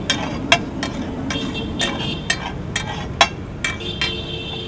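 Metal spatula striking and scraping a large flat iron griddle while pav bhaji is stirred and mashed on it: sharp clanks at about two a second, some with a short metallic ring.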